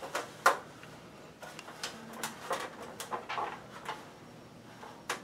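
Light clicks and rustling of hands working wires and plastic twist-on wire nuts at a ceiling electrical box, scattered irregularly, with a sharper click about half a second in and another near the end.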